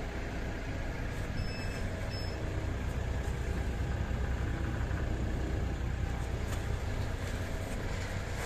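Water-well drilling rig's engine running steadily, a constant low mechanical drone with the drill string standing still.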